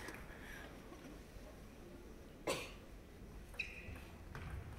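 Hushed table tennis hall between points, with one short cough about two and a half seconds in and a brief high squeak about a second later.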